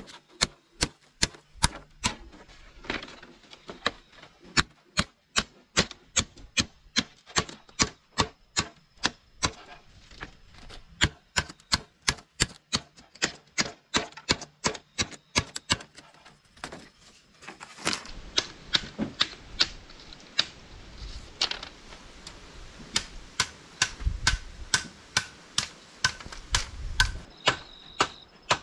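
Rapid, evenly repeated sharp knocks, about two or three a second, with a short pause a little past halfway.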